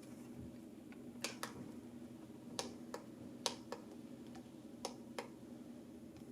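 Buttons on a digital alarm clock clicking as they are pressed, about four presses that each give a quick double click, over a faint steady hum.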